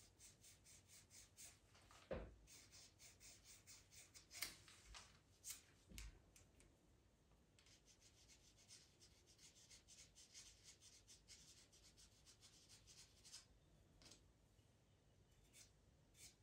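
Faber-Castell Pitt pastel pencil scratching faintly on Pastelmat paper in quick, short strokes as whiskers are drawn, with two soft knocks about two and six seconds in.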